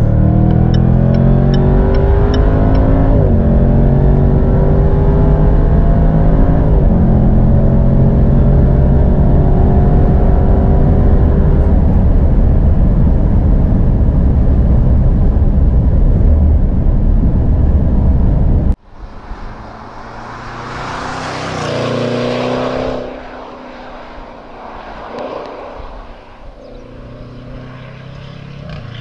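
Jaguar F-Pace SVR's supercharged 5.0 V8 accelerating hard at full throttle, heard from inside the cabin, its pitch climbing and dropping at upshifts about 3 and 7 seconds in, then giving way to a steady loud rush at high speed. After a sudden cut about 19 seconds in, a car is heard from the roadside, loudest near 22 seconds and then fading.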